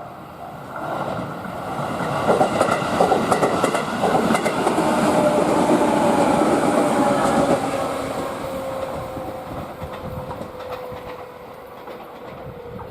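JR East 211-series 3000-subseries electric train passing by: wheels clicking over the rail joints, the sound growing to a peak and then fading away, with a tone that slowly falls in pitch as it recedes.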